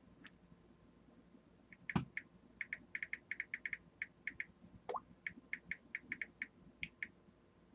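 Faint, quick, light clicks at a few a second, typing on a computer keyboard, with one louder knock about two seconds in.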